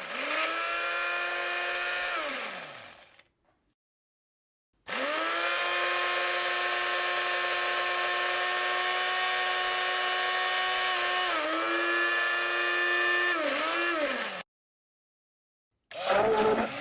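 Electric kitchen blender motor whirring at a steady high pitch, then winding down with a falling pitch. It starts again after a pause and runs steadily, dipping in pitch briefly twice, then cuts off.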